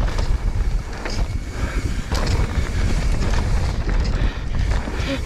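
Wind buffeting the microphone of a mountain biker's action camera, over the rumble of knobby tyres rolling fast on a packed-dirt trail, with scattered clicks and rattles from the bike.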